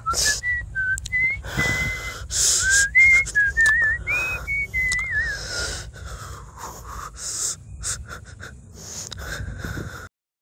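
A person whistling a slow, wavering tune for about five seconds over a low steady drone, with breathy noises between phrases. Then only the drone and scattered breathy sounds go on, cutting off abruptly near the end.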